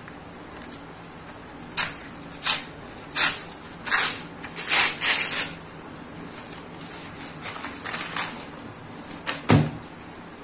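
Brown paper mailer envelope being torn open by hand: a run of sharp rips and paper crackles, then softer crinkling, and a single thump near the end.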